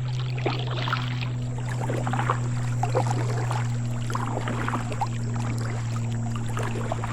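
Water splashing and dripping around a kayak as it is paddled, in many small irregular splashes, over a steady low hum.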